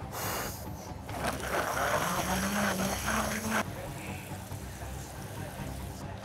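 Water running for about two and a half seconds, as from a kitchen tap, then cut off sharply; a brief hiss comes just before it.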